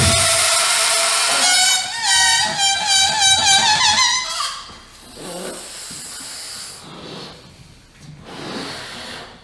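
Experimental performance sound: a loud hissing drone with a held tone breaks into a warbling, wavering pitch for a few seconds, then fades into softer, intermittent breathy hisses.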